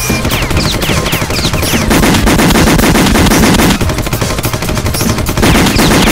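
Rapid automatic gunfire from a submachine gun, in continuous bursts that get louder and denser about two seconds in, with short falling whistles over it.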